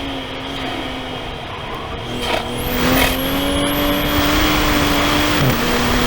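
Toyota GR Supra (A90) engine heard from inside the cabin under load on a wet track, over steady road and spray noise. Its pitch climbs slowly, then drops slightly about five seconds in and carries on.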